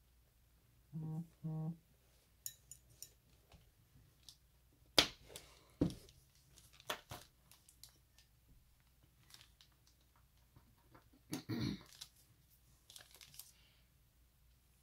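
Scattered clicks, taps and knocks of small plastic paint pots and a paintbrush being handled on a worktable, with two short low hums about a second in.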